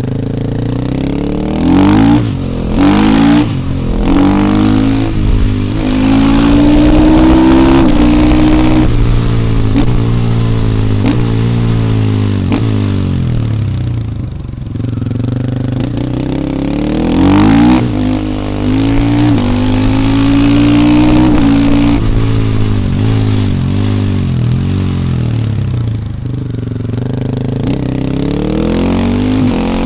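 KTM 450 EXC supermoto's single-cylinder four-stroke engine under hard riding: the pitch climbs as it revs out, then drops back at each gear change or roll-off, over and over. Short loud blasts about two, three and eighteen seconds in.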